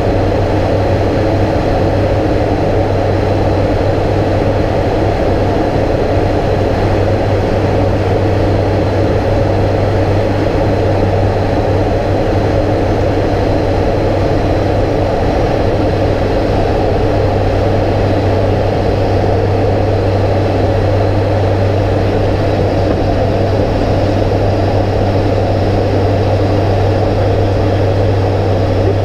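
Steady drone of an ATR 72-500's turboprop engines and propellers in flight, heard inside the flight deck: a loud, even low hum with airflow noise over it, unchanging throughout.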